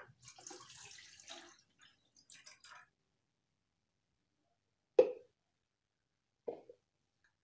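Water being poured into a cooking pot, splashing and dripping for about three seconds, then two short knocks about a second and a half apart.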